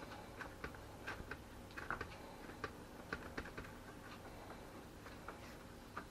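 Faint, irregular light taps and clicks as hollowed courgette halves are set down and shifted about on a silicone baking mat.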